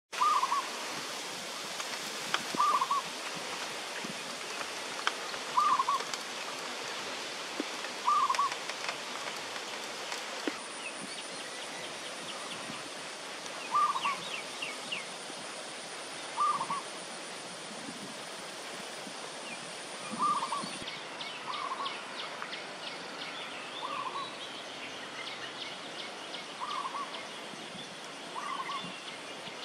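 A bird repeats a short, low call, sometimes doubled, about every two to three seconds, with fainter higher chirps of small birds. A thin, steady, high insect-like whine runs through the middle stretch.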